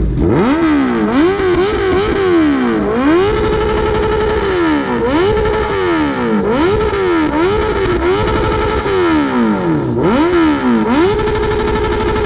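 Honda CBR650's inline-four engine being revved hard while standing, the pitch sweeping up and falling back again and again in quick blips, and twice held steady at a high pitch for over a second.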